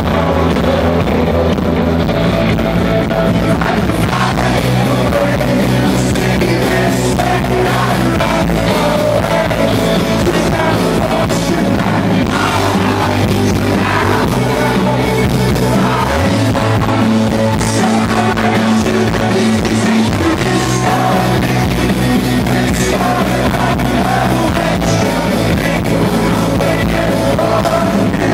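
Live rock band performing a song: singing over guitars and bass, with the bass notes changing every couple of seconds.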